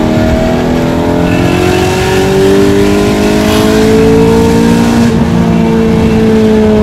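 BMW E92 M3's 4.0-litre V8 through a full IPE exhaust, heard from inside the cabin under acceleration: the note climbs steadily for about five seconds, breaks briefly, then falls slowly.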